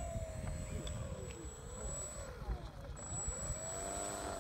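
Radio-controlled model airplane's motor and propeller whining as it taxis, the pitch rising and falling with the throttle: it sags about halfway through, then climbs again and drops off near the end.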